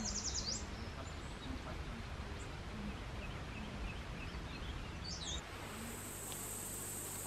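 Outdoor ambience of birds chirping now and then over a low rumble. About five and a half seconds in, it switches to a steady high-pitched drone of insects.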